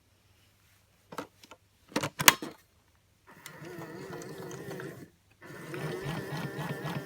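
Battery-powered toy washing machine: a few clicks and knocks as it is handled and its buttons pressed, then its small motor starts up with a steady whir and a wavering tone, drops out for a moment and runs again.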